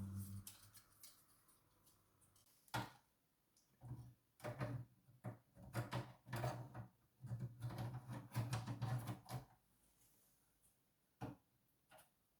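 Handling noises: a series of sharp clicks and knocks, busiest in the middle stretch, with a few single knocks near the start and end.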